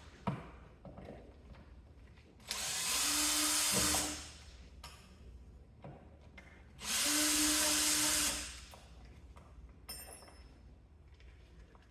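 Power drill running in two bursts of about a second and a half each, with a steady motor whine.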